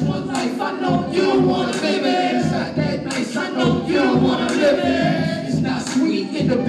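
Live hip-hop performance through a club PA: several rappers' voices on microphones over a backing beat from a DJ.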